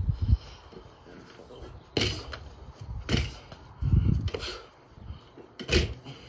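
Bare fists punching an Everlast freestanding reflex bag in a combination: about six sudden smacks and thuds, unevenly spaced.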